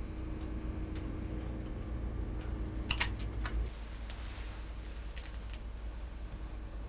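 Scattered light clicks and taps of hands handling plastic cards and a leather planner, a small cluster about three seconds in and two more near the end, over a low steady room hum.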